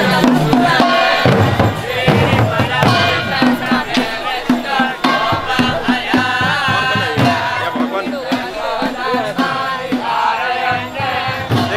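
Kirtan: many voices singing a devotional chant together over a steady beat of about two pulses a second.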